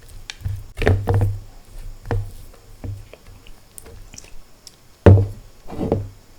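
Close-miked chewing and mouth sounds of a person eating: a run of irregular soft thumps and clicks, loudest about five seconds in.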